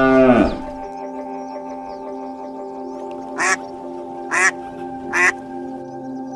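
A cow's drawn-out moo ends in the first half-second, then three short animal calls come a little under a second apart over steady background music.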